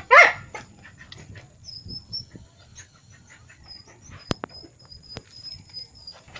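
A kitten gives one short mew right at the start as an adult cat pounces on it in play, followed by low rustling. A sharp click comes about four seconds in, with faint high chirping behind.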